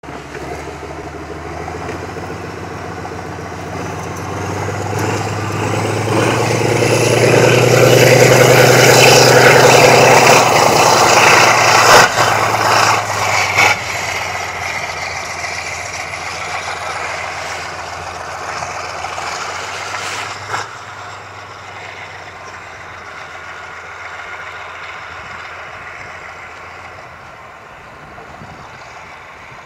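760 mm narrow-gauge diesel train passing close by and pulling away: the locomotive's diesel engine running under load, loudest about ten seconds in, then the rumble of the train fading steadily as it moves off. A sharp click about twelve seconds in, with smaller ones just after and near twenty seconds.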